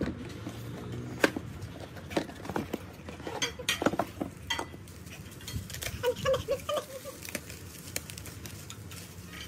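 Unboxing by hand: a small cardboard box is handled and an item pulled out, then plastic bubble wrap crinkles and rustles as it is unwrapped, with scattered light clicks and knocks.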